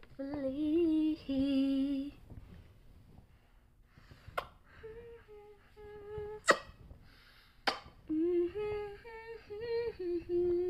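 A woman humming a wordless lullaby tune in slow held notes to lull a baby to sleep, in two phrases with a softer pause between. Three sharp clicks fall in the pause.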